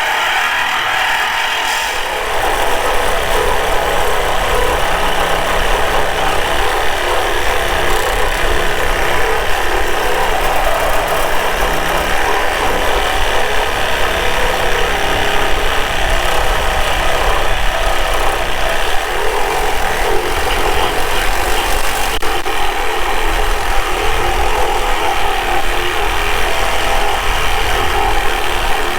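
Power saw cutting through the steel frame bracket of an SUV, starting about two seconds in and running steadily.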